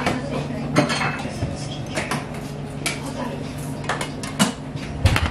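Ceramic bowls and plates clinking as they are set down and shifted on trays, in a string of short sharp knocks, over a steady low hum.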